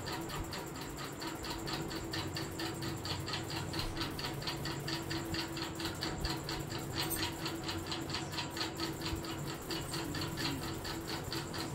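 Rapid, even ticking, about seven clicks a second, over a steady low hum.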